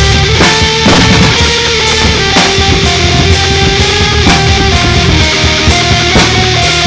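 Loud heavy rock music: guitar playing held notes over a heavy low end, punctuated by sharp drum hits.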